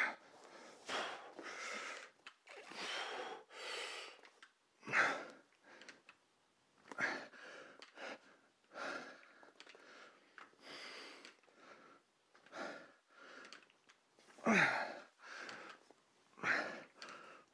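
A man breathing hard while straining through a heavy set of one-arm dumbbell rows. Sharp forced exhales and inhales come about once a second, and a few carry a short grunt that falls in pitch.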